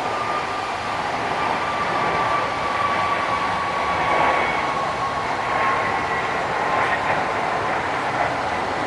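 Jet airliner's engines running at close range: a steady rush with a thin whine that slides slowly down in pitch as the aircraft passes.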